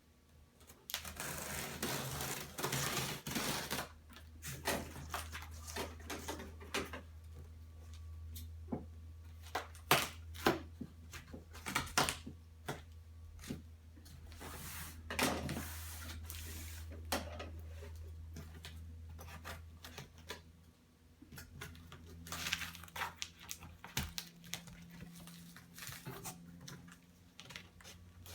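Cardboard box being opened by hand: irregular tearing and rustling of the packaging, with scattered knocks and clicks as it is handled.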